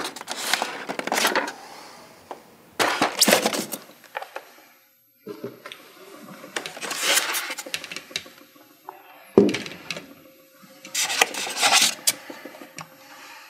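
Foam inserts and gear being handled in a hard-shell drone carrying case: several bursts of foam rubbing and scraping, with a sharp knock about two-thirds of the way through.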